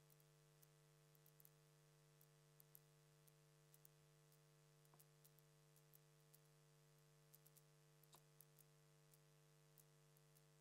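Near silence: a faint steady electrical hum with a few faint, scattered ticks.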